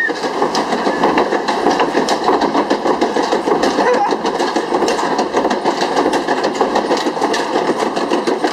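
Log flume boat climbing the lift: a steady, dense clattering rattle of the lift mechanism under the boat.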